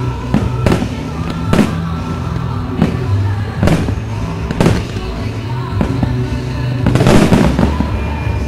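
Aerial fireworks shells bursting, a sharp bang about once a second with a denser cluster of bangs and crackle about seven seconds in, over music with a steady bass line.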